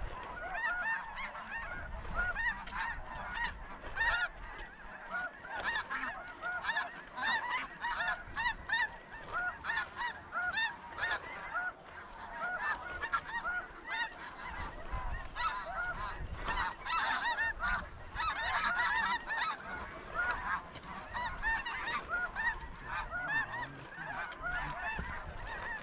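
Large flock of snow geese calling, a dense chorus of many short overlapping honks that never lets up.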